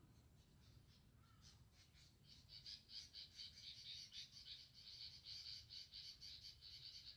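Faint wildlife chirping: a rapid run of high-pitched chirps that begins about a second and a half in and keeps going.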